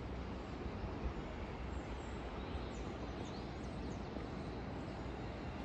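Steady outdoor ambient noise with a strong low rumble and a few faint high bird chirps in the middle.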